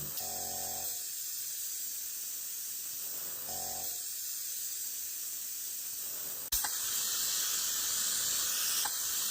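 Steady hiss, louder after an abrupt change about two-thirds of the way through.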